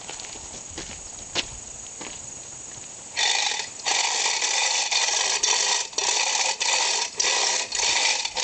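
Hand-operated chain fall (chain hoist) being pulled, its chain and ratchet clattering in repeated strokes about two a second from about three seconds in, after a few faint clicks. It is straining a breaker bar to break loose a rusted differential yoke nut.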